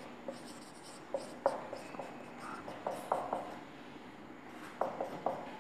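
Marker pen writing on a whiteboard: short squeaks and ticks of the felt tip on the board, coming in three small bursts of strokes.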